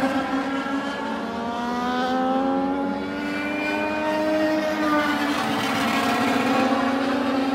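A pack of Legends race cars running laps on an oval, their Yamaha motorcycle engines heard as several overlapping notes that rise and fall. The pitch dips about a second in and climbs again as the cars power off the turn.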